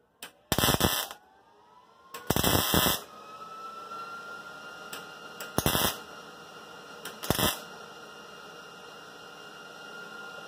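Wire-feed welder laying short tack welds on a car's quarter panel: four brief bursts of arc crackle, the second the longest, with a few faint clicks between them.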